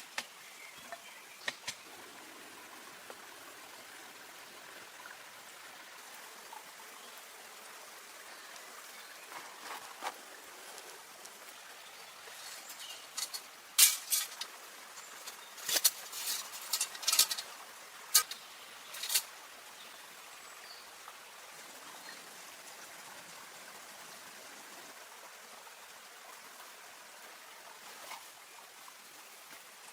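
Steady rush of stream water, with a cluster of sharp clicks and knocks about halfway through.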